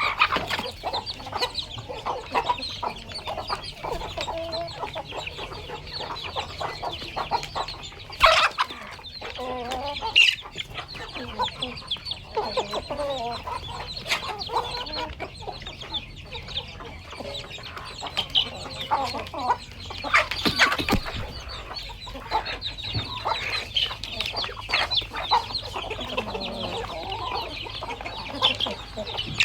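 A flock of free-ranging village chickens clucking continuously, many calls overlapping, with a few louder sharp noises standing out among them.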